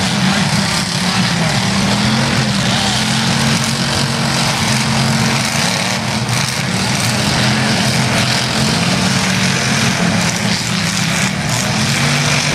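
Demolition derby cars' engines running and revving together, loud and continuous, with their pitch rising and falling over a dense haze of noise.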